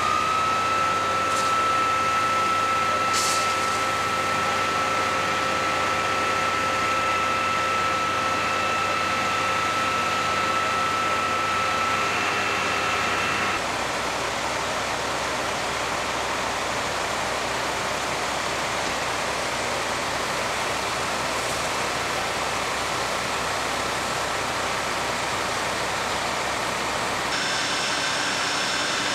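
Fire apparatus diesel engines and fire pumps running steadily at high idle. A steady whine runs over them for about the first 13 seconds, and the sound changes abruptly there and again near the end.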